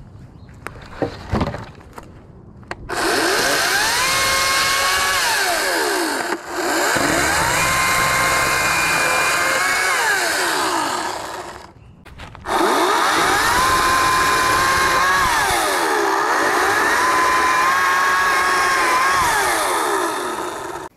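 Ryobi 40V brushless cordless chainsaw running in long bursts. Its electric whine rises as the chain spins up, holds level, then sags in pitch as the chain bites into a fallen branch, and climbs again when it is eased off. A few knocks come before it starts, and it stops for about a second midway before running again.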